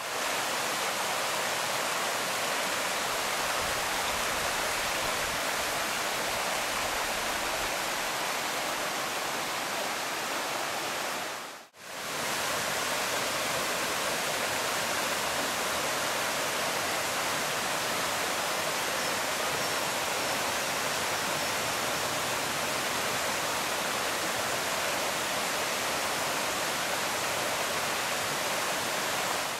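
Small rocky forest stream rushing over stones: a steady, even water noise. It drops out for a moment about twelve seconds in, then comes back the same.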